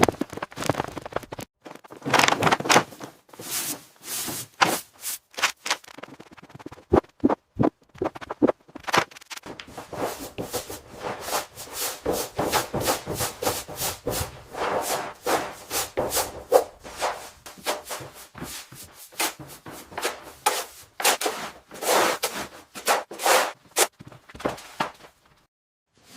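Repeated short scraping and rubbing strokes at an uneven pace, like scrubbing or sweeping a rough surface, with a brief pause near the end.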